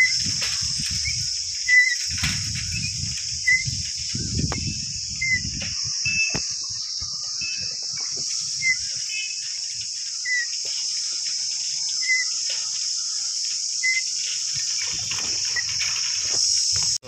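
A steady, high-pitched insect chorus, with a short high chirp recurring about every second and a half to two seconds. Low rumbles of wind on the microphone come in the first few seconds and again near the end.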